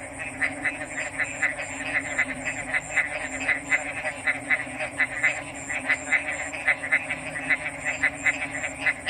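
Frogs calling: a rapid train of short calls, several a second, over a steady lower chorus and a constant high-pitched buzz.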